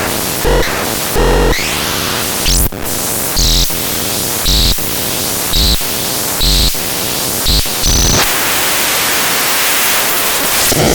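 Electronic noise from the VAPETRON 403NK: a steady static hiss broken by short pulses, about one a second, each a low thump with a high tone on top. About eight seconds in the pulses stop and the hiss carries on alone.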